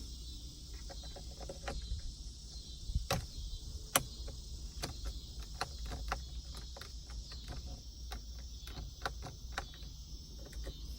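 Sharp, irregular plastic clicks from the newly fitted aftermarket climate control knobs on a 2016 Toyota 4Runner dash being handled and pressed, the two loudest about three and four seconds in. A steady high chirring of insects runs underneath.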